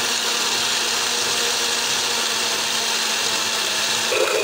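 Moulinex electric blender motor running steadily, grinding soaked almonds, poppy seeds, coconut and milk into a smooth paste; its tone shifts slightly near the end.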